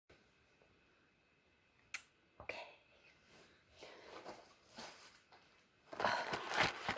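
Cardboard snack boxes being handled: a sharp tap about two seconds in, then scattered rustling and scraping of the boxes that grows louder near the end.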